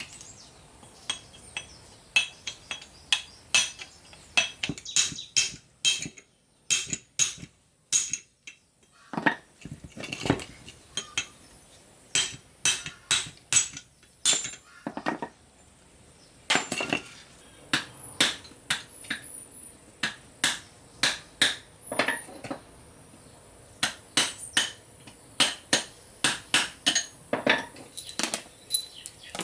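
Metal hand tools knocking and clinking against steel truck parts during repair work: irregular sharp strikes, often several in quick succession, with a brief pause partway through.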